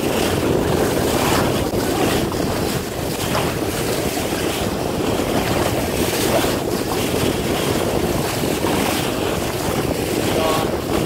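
Wind buffeting the microphone over the steady rush and splash of water along the hull of a boat under way.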